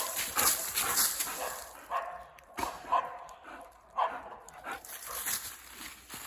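Steps crunching through dry fallen leaves, then a dog giving about three short whimpering yips in the middle.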